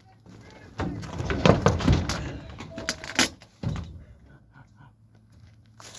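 A door being worked open: knocking and clattering for about a second and a half, then a sharp knock about three seconds in and another soon after.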